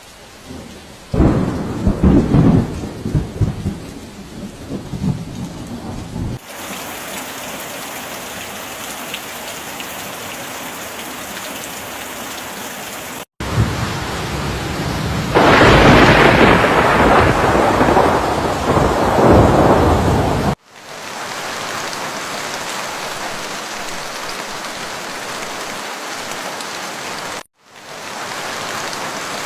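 Steady rain with two long rolls of thunder, one starting about a second in and one near the middle. The rain sound changes abruptly several times where separate recordings are joined.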